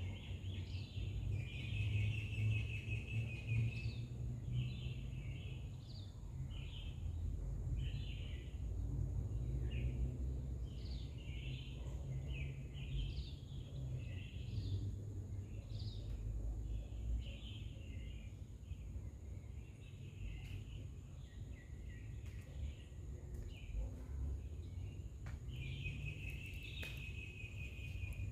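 Small songbirds chirping and calling in quick short notes, with a longer buzzy trill near the start and again near the end, over a steady low rumble and a faint constant high whine.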